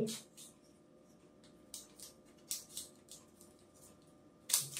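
Handling sounds from a spark tester's plastic pistol-grip handpiece as a wire-brush electrode is being fitted onto it: a scatter of short clicks and scrapes, the loudest click about four and a half seconds in.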